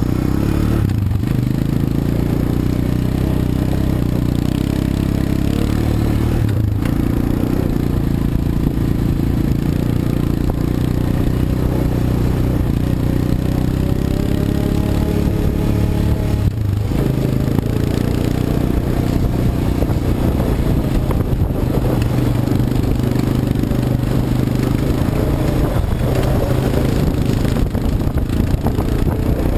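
ATV engine running under way, its pitch rising and falling with the throttle, dipping briefly a few times.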